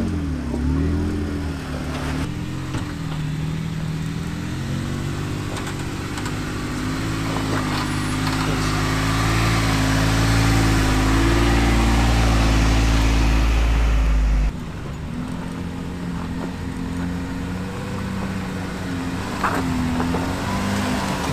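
Jeep engine running at low revs, its pitch rising and falling gently as the Jeep crawls over rock. A deep low rumble under it cuts off suddenly about fourteen seconds in.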